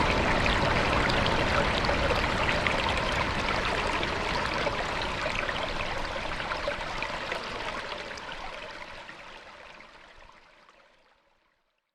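Waterfall water rushing in an even, steady hiss with small splashes, fading out gradually over the last several seconds until it is gone.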